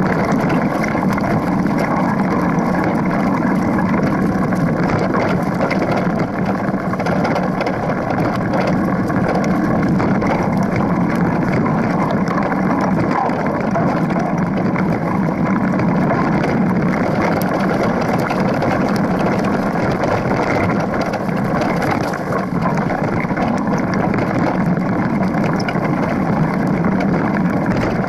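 Mountain bike riding down a leaf-covered dirt trail, heard from a camera on the front fork: the knobby front tyre rolls over the ground in a steady rumble, and the bike rattles with constant small clicks.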